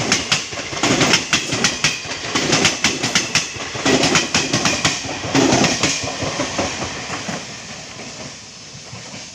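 Express train coaches passing at speed: the wheels clatter over the rail joints in loud groups about once a second over a steady rush. The sound fades away over the last few seconds as the end of the train goes by.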